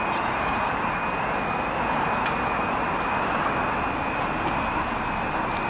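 Level crossing warning alarm sounding a steady high-pitched tone with a slight warble, signalling that the barriers are about to lower for an approaching train. Underneath it is a steady rushing noise.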